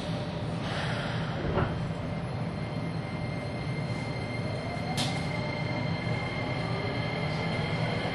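Nagoya subway 6050 series train standing at the platform, its onboard equipment giving a steady low hum with a thin steady high tone. A sharp click comes about five seconds in, and a faint rising tone begins in the last few seconds.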